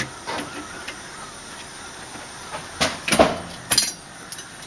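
Storm door lockset parts being fitted by hand: a few sharp metal clicks and knocks, the loudest three close together about three seconds in.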